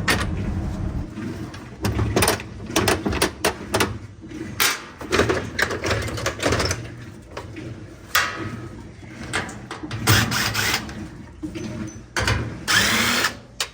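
Irregular clicks, knocks and rattles of screws being backed out of a top-load washer's console and the console being lifted and handled, with a short whirring sound near the end.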